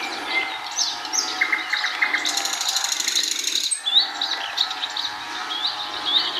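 Several songbirds singing at once: overlapping chirps and short whistled phrases, with a fast, high trill lasting over a second in the middle.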